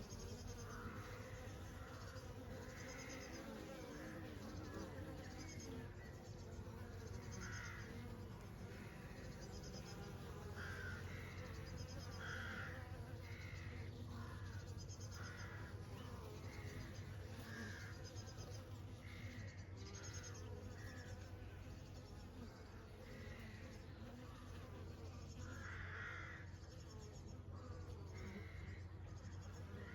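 Honey bees buzzing in a steady hum, with a bird calling in short, repeated notes about once a second over it.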